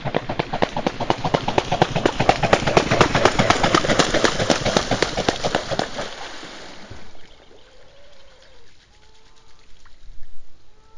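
A swan taking off from the water: a fast, steady run of splashes and wingbeats that fades away after about six seconds as the bird gets airborne and leaves. A few faint bird calls follow near the end.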